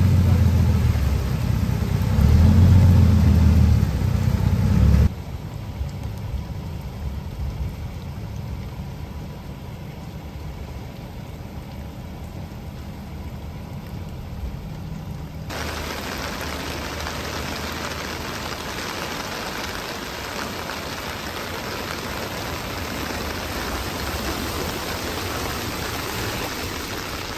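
A motor vehicle's engine running close by for about five seconds, then cutting off abruptly to a faint low rumble. About halfway through, a steady hiss of water on flooded streets comes in and holds.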